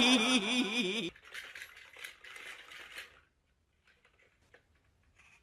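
A voice with a wavering, warbling pitch that cuts off about a second in, followed by faint rustling and then near silence.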